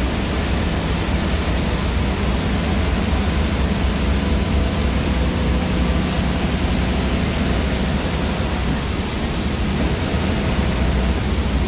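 Steady low rumble and rushing noise inside a GSRTC bus driving at highway speed in heavy rain: engine, tyres on the wet road and rain on the bus.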